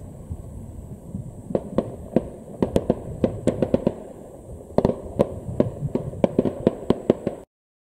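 Aerial fireworks bursting: a quick run of sharp bangs and pops over a low rumble, in two clusters. The sound cuts off suddenly near the end.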